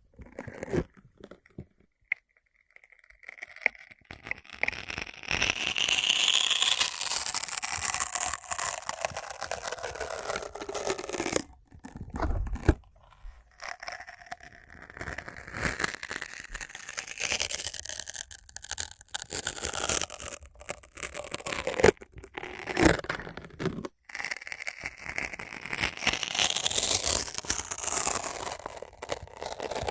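Close-up scratching and crinkling handling noises, long rustling strokes broken by a few sharp clicks, after a near-quiet start.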